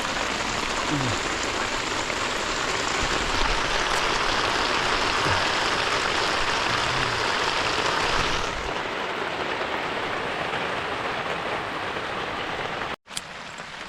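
Heavy rain falling steadily, a dense hiss that becomes noticeably softer about eight and a half seconds in and cuts out for an instant near the end.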